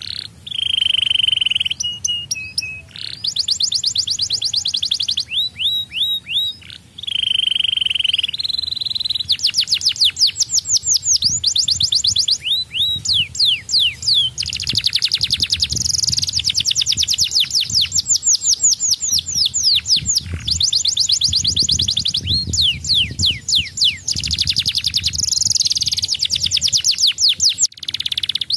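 Domestic canary singing: fast rolling trills of rapidly repeated high notes, broken by a few held whistled notes, one early on and one about 8 s in.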